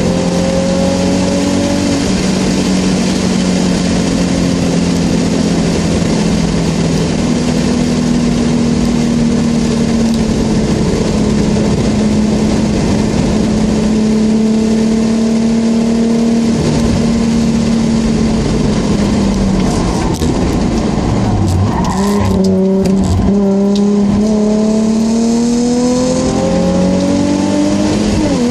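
Nissan 350Z's 3.5-litre V6 engine pulling along the track, heard inside the cabin. Its note holds fairly steady for a long stretch, then drops about twenty seconds in with a few knocks and climbs again as the car accelerates near the end.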